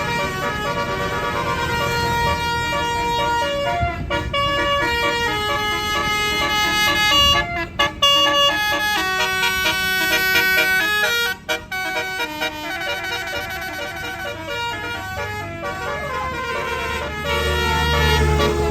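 Telolet Basuri multi-tone bus horn playing a melody, its notes stepping quickly from one pitch to the next with a couple of short breaks. A low engine rumble runs underneath and swells near the end.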